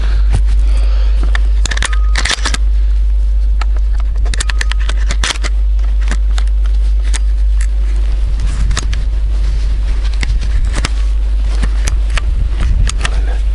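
Wind buffeting the microphone as a steady low rumble, with scattered sharp clicks and scrapes of close handling noise.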